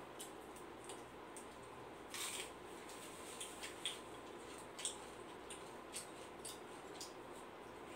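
Eating sounds: scattered small clicks, crackles and smacks as hands pick apart grilled chicken and mouths chew, with a short burst of crackling a little after two seconds, over a steady low room hum.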